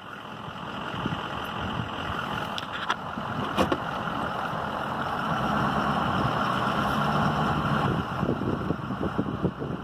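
Pickup truck's engine and tyre noise, heard from inside the cab with the window down as the truck drives slowly. The rumble grows steadily louder, with a few light knocks near the end.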